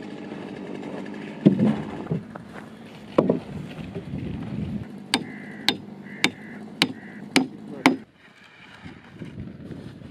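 Hammer blows on timber: six sharp, evenly spaced strikes about half a second apart, after two heavier wooden knocks.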